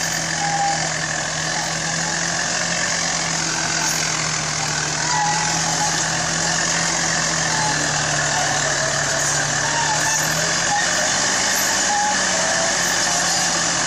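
Heavy bulldozer diesel engine running steadily, a constant low drone with a broad mechanical noise over it, and short high chirps here and there.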